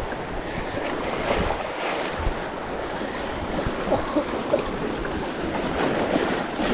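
Waves washing and splashing against jetty rocks, with wind buffeting the microphone.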